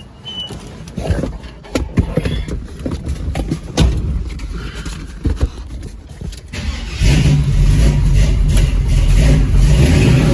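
A few knocks and thumps, then about seven seconds in the Chevrolet Camaro Z28's V8 engine starts and runs loud and steady.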